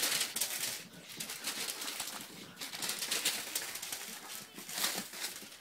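Puppies scampering over sheets of newspaper, the paper rustling and crinkling under their paws in uneven spurts.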